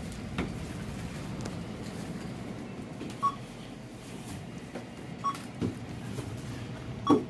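Checkout barcode scanner beeping as items are scanned: two short beeps about two seconds apart, then a louder beep with a knock near the end, over a low steady hum of store background noise.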